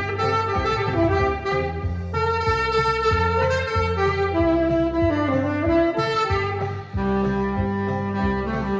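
Saxophone playing a slow melody line in held notes, with its natural tone and no added effects. A downward pitch slide comes about five seconds in. Underneath runs an accompaniment with a steady bass.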